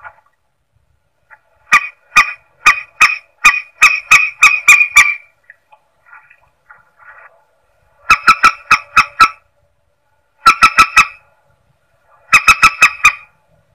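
Lure-call recording of the mandar sawah, a rail-family bird: short, sharp calls repeated in quick runs. A long run of about a dozen notes comes first, then three shorter runs of four to six notes each after a pause of about three seconds.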